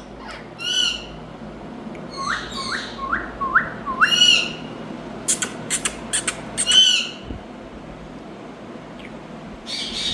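Indian ringneck parrot calling: three arching, screechy calls spaced a few seconds apart, with a quick run of about five short rising notes between the first two. A few sharp clicks come between the later calls.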